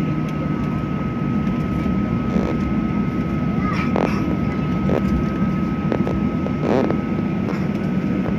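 Jet airliner engines running steadily, heard from inside the passenger cabin: a low drone with a steady high-pitched whine over it.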